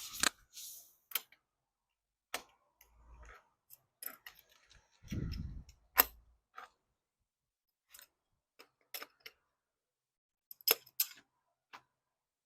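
Scattered sharp clicks and knocks of a bicycle saddle being adjusted on its seat post clamp, a tool working the clamp bolt as the saddle is tilted down and shifted, with a short low rumble about five seconds in.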